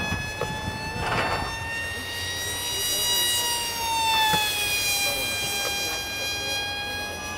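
Radio-control model plane's motor and propeller whining steadily overhead, a high pitched drone whose pitch drifts slowly and drops slightly about four seconds in.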